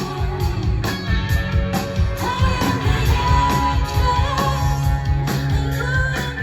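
Background music: an upbeat rock-style song with a steady drum beat, guitar, bass and a sung vocal line.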